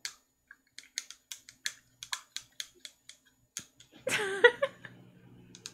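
Computer keyboard keys clicking in an irregular run of taps, about three or four a second, then a brief burst of voice about four seconds in.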